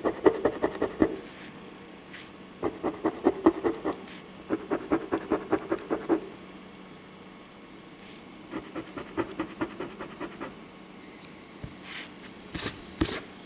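A coin scraping the latex coating off a paper scratch-off lottery ticket in quick back-and-forth strokes, several a second, in four bursts with short pauses between. Near the end come two short, sharper swishes.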